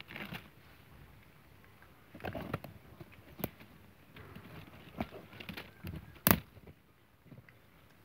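Cat chewing on a small squirrel: irregular wet crunches and crackles, with rustling in dry leaves, and one sharp click about six seconds in that is the loudest sound.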